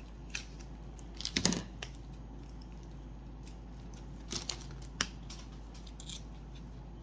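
Scissors snipping at the plastic wrapping of a small eyeliner package: a few short, separate cuts, the loudest cluster about a second and a half in and a sharp snip about five seconds in.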